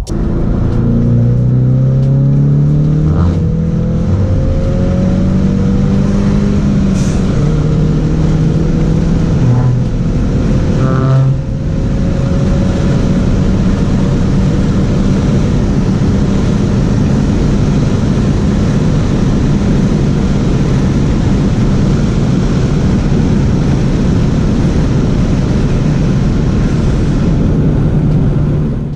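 2019 Ford Mustang EcoBoost's turbocharged 2.3-litre four-cylinder accelerating through the gears, heard from inside the cabin: engine pitch rises and drops back at each upshift over the first dozen seconds, then runs steadily at cruise with road noise.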